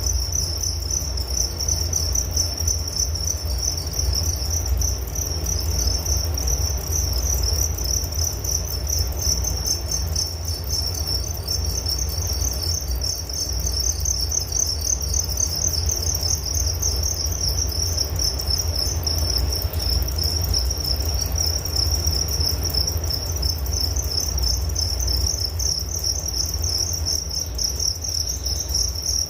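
Crickets chirping continuously in a steady, high-pitched, rapidly pulsing chorus, over a low rumble.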